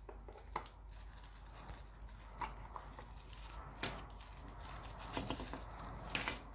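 Thin white packing wrap rustling and crinkling as it is unwrapped by hand, with a few sharper crinkles, the loudest about four seconds in and just before the end.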